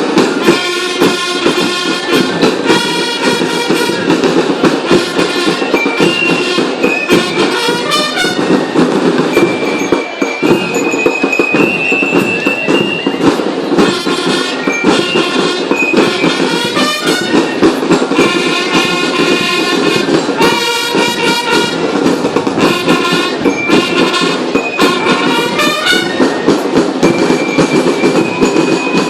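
Loud music with a dense, steady percussion beat under a melody line.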